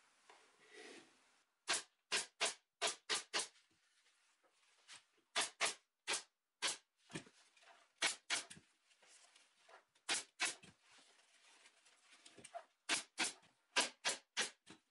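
Pneumatic upholstery stapler firing staples through fabric into a wooden seat frame: a series of sharp clacks in quick runs of three to five, with short pauses between runs. The first shot comes about a second and a half in.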